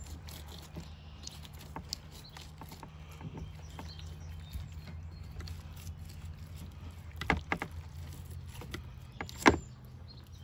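Fillet knife cutting and scraping along a northern pike's bones on a plastic cutting board, with small faint clicks and two sharper knocks in the second half, the louder one near the end. A steady low hum runs underneath.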